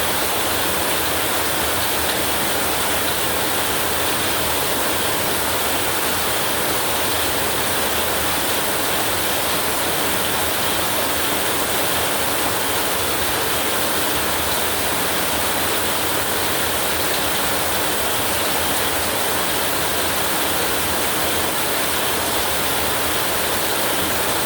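Heavy rain pouring steadily, an even, unbroken hiss with no thunder.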